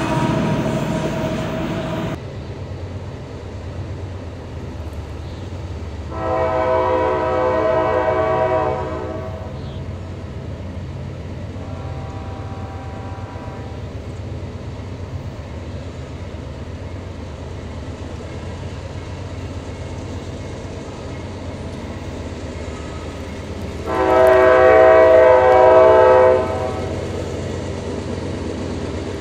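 A diesel freight locomotive passing close cuts off abruptly about two seconds in. A distant approaching locomotive, heard as a low steady rumble, then sounds its multi-chime air horn: a long blast about six seconds in, a fainter shorter one around twelve seconds, and a loud long blast near the end.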